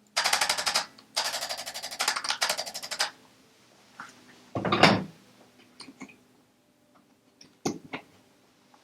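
Rapid mechanical tapping, like a small machine firing many strokes a second, in two runs: a short one, then one of about two seconds. About five seconds in there is a short loud rustling shuffle, followed by a few sharp clicks.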